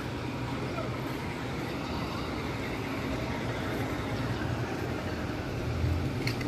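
Steady street traffic noise with a continuous low engine hum.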